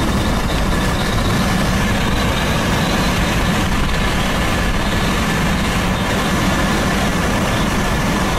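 Steady engine and road rumble heard from inside a vehicle.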